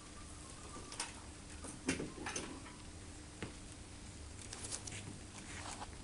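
Light, irregular taps and clicks of an Australian magpie's claws on bare wooden floorboards as it walks, in a few single steps and then a quick run of taps near the end.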